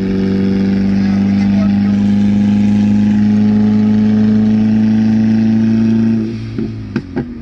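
Car engine heard from inside the cabin of an Audi A4, pulling at a nearly steady pitch. The engine note drops away about six seconds in.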